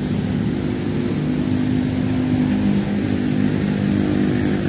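A steady low engine drone, holding a few low pitches that shift slightly, over general outdoor background noise.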